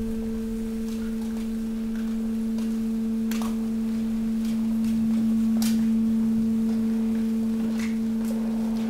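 Hydraulic waste compactor running: the pump gives a steady hum with a higher overtone, a little louder around the middle. A few sharp cracks are heard as the mixed waste of paper sacks and cardboard shifts under the press.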